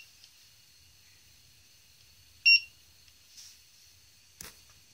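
Short high electronic beep repeating about every two and a half seconds from a powered-up Eachine Wizard X220 racing quadcopter whose motors do not spin. The quad fell out of the sky and only beeps when restarted, which the owner puts down to a motor or ESC problem. A faint click comes near the end.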